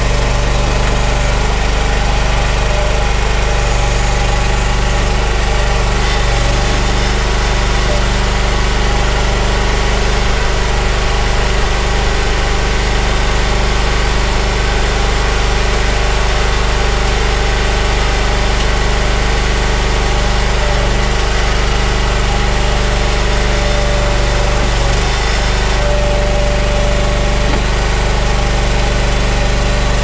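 Mini tracked skid steer's engine idling steadily while the machine stands still.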